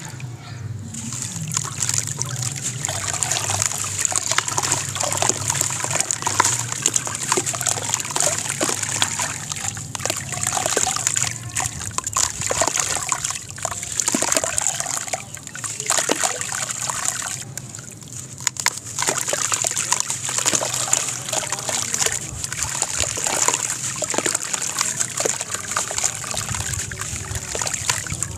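A dry sand-and-cement block crumbling in the hands as it is dipped in a tub of water: grit and chunks trickle and splash into the water, and the water sloshes, with a dense crackle of many small clicks throughout.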